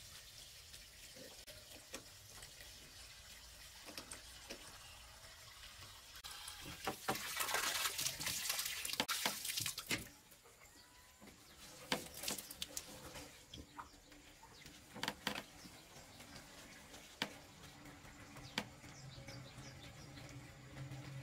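Water running and splashing from a black plastic water hose, loudest for a few seconds and cutting off suddenly about halfway through, around when the hose ends are joined with a fitting. Scattered clicks and rustles of the hose being handled follow.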